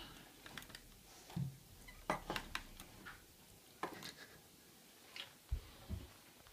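Scattered light plastic clicks and knocks from a 3D-printed prosthetic hand on a wooden table as its fingers close on an orange, with a couple of dull low thumps near the end.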